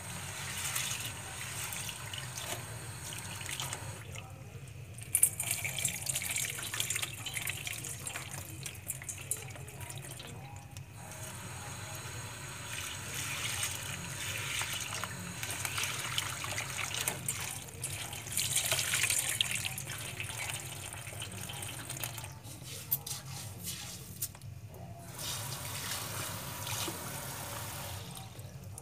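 Kitchen tap water splashing into a glass bowl of small grains while hands swish and rub them to rinse them. The splashing breaks off briefly a few times, and there is one sharp knock about five seconds in.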